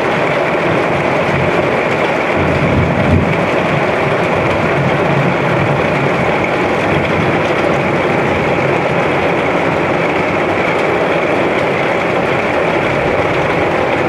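A storm: a steady, loud rushing noise of rain and wind, with a brief low swell about three seconds in.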